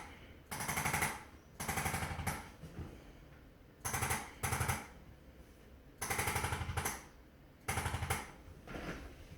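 Handheld electric percussion instrument pressed against the body, firing rapid pulses in about seven short bursts, each under a second, with brief pauses between them.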